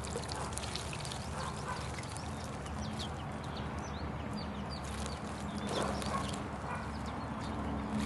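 Small birds bathing in a birdbath, splashing the water, with the loudest splash about six seconds in and more near the end. Many short, high chirps of small songbirds throughout, over a steady low background rumble.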